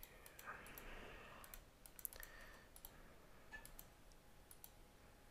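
Faint, scattered clicks of a computer mouse and keyboard over near silence.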